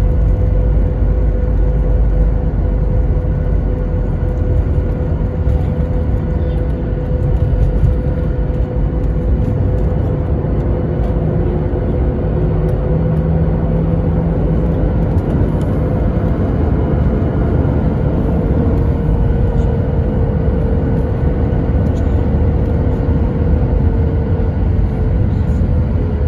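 Boeing 737 cabin noise from inside the cabin: the jet engines and airflow make a steady, loud low rumble with a constant hum tone over it.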